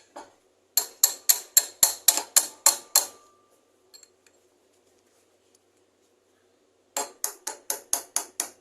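Metal-on-metal tapping at a bearing puller on a washing-machine motor shaft, working a stuck motor bearing loose. It comes in two quick runs of ringing strikes, about four a second: one starting about a second in, the other near the end.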